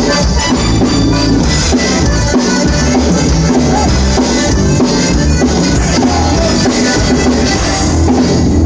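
A live conjunto band playing: button accordion carrying the tune over electric bass, drum kit and guitar, with a steady beat.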